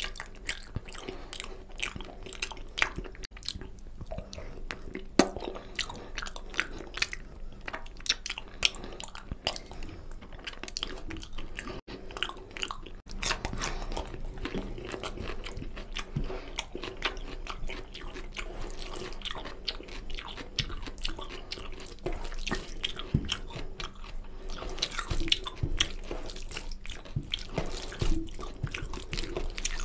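Close-miked eating of mutton paya (goat trotter curry) with rice: continuous wet chewing and biting, full of irregular sharp smacks and clicks.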